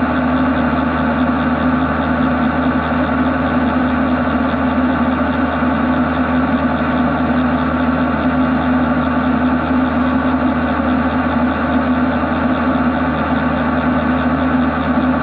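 Machining centre spindle turning a long vibration-dampened boring bar that is cutting a bore in grey cast iron: a steady, even machining noise with one constant low hum over a continuous hiss, at a level that does not change.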